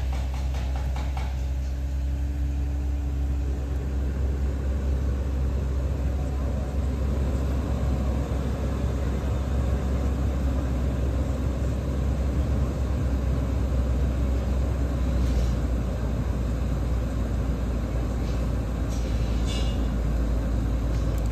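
Genesis G90's 3.3-litre twin-turbo V6 idling steadily, heard from inside the cabin as a low, even rumble. A few light clicks come late on, as dashboard controls are pressed.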